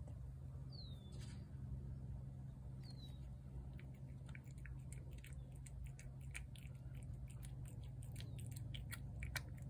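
Cat eating wet pâté cat food from a plate: quick, wet chewing and lip-smacking clicks. They start a few seconds in and come faster and thicker toward the end.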